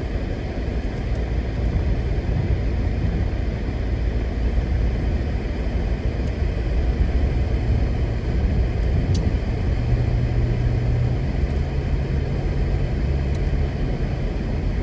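Steady low rumble of a car's tyres and engine heard from inside the cabin while driving, with a low hum joining for a few seconds near the end.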